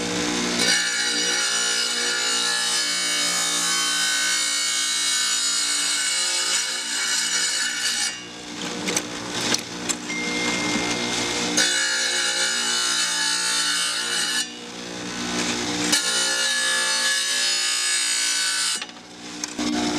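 Wet tile saw's diamond blade grinding through a glass bottle as the bottle is turned against it: a harsh, gritty scraping over the motor's steady hum. Twice, about eight and fourteen seconds in, the grinding drops away for a second or two while the motor keeps running.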